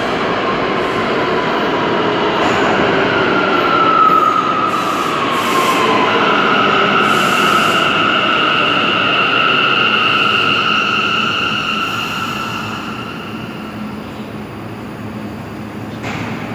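R179 subway train pulling into an underground station and braking to a stop. A high whine drops in pitch, then a steady high squeal rides over the rumble of the train. Both fade away about 13 seconds in as the train comes to rest.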